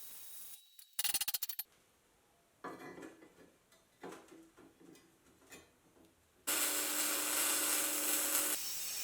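Workshop tool sounds: a quick rattle of clicks, then irregular scraping strokes, then a power tool running steadily for about two seconds before it stops.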